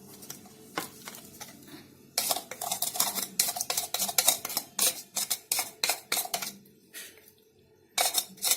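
A spoon clinking and scraping against a bowl while powdered sugar is added to and worked into crumbled khoya (mawa). A few scattered clinks come first, then a run of quick clinks from about two seconds in. It goes quieter near the end before the clinking picks up again.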